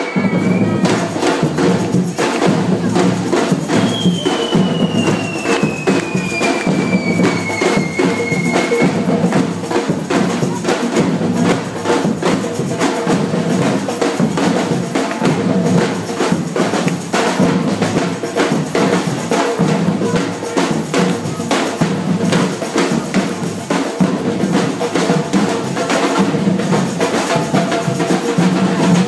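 Firecrackers going off in a dense, continuous string of rapid cracks and bangs, with a high whistle falling in pitch about four seconds in.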